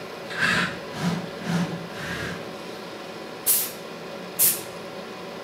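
Two short, sharp hisses of compressed air about a second apart, the loudest events, from the pneumatics of an industrial robot cell. A few softer, duller noises come in the first couple of seconds.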